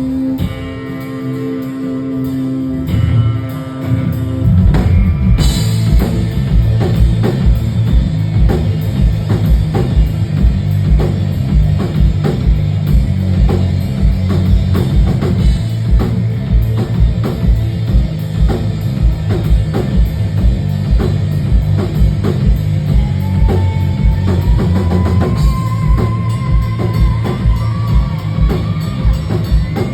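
Live rock band playing. A quieter guitar passage gives way about four seconds in to the full band: drum kit with a steady driving beat under bass and guitars. A melodic line slides upward near the end.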